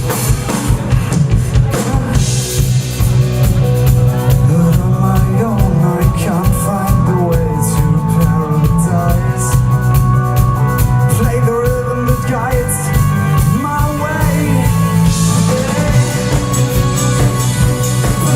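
Live rock band playing an instrumental passage between sung lines, with a drum kit, steady bass and a wavering lead melody.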